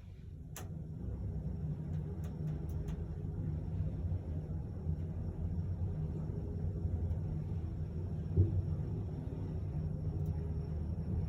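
Passenger lift car travelling in the shaft: a steady low rumble that swells up as it gets going, with a sharp click near the start, a few light ticks, and a single knock about eight seconds in.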